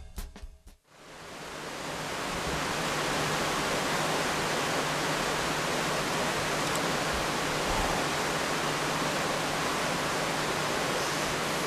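A steady, even hiss that fades in over the first couple of seconds and then holds level, with a faint low hum beneath it.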